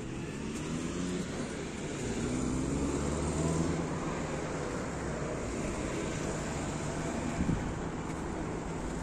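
A motor vehicle's engine driving past, getting louder to a peak about three to four seconds in and then easing off, over steady street traffic noise.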